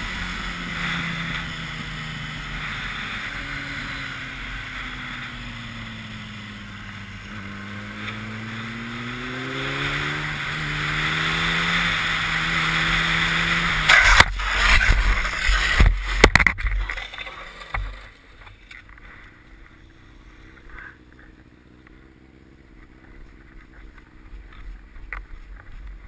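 Yamaha sport motorcycle's engine and wind rushing at the helmet, the engine pitch sinking and then climbing. About 14 seconds in, a crash: a few seconds of loud knocks and scraping as the bike goes down and slides on the pavement, then much quieter, with a faint engine idling.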